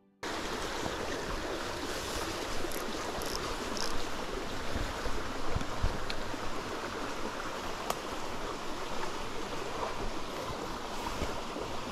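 Steady rush of a small rocky creek, shallow water running over stones, cutting in suddenly at the start.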